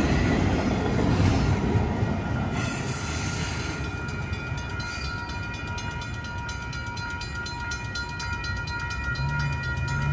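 Union Pacific manifest freight train's last autorack cars rolling past with a low rumble that fades as the train moves away. A grade-crossing bell rings with rapid, evenly spaced strikes, and a low hum starts near the end.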